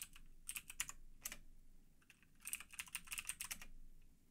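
Typing on a computer keyboard: a few scattered keystrokes in the first second and a half, then a quick run of keys lasting about a second.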